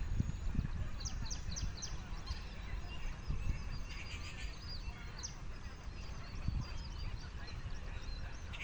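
Birds chirping and calling in short, quick high notes, some of them buzzy, over a steady low rumble.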